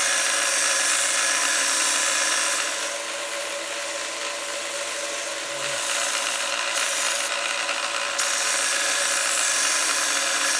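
Small narrow-belt sander running, with a wooden workpiece pressed against the moving abrasive belt: a steady scratchy sanding hiss over the machine's hum, easing off a little for a few seconds midway.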